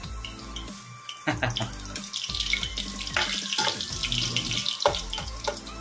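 Chopped onion sizzling and crackling in hot oil in a thin pan, a steady hiss with a few sharper knocks.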